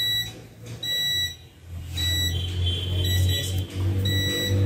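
An electronic beeper on the repair bench sounding a short, high beep about once a second, about five times, over a low hum that grows louder from about two seconds in.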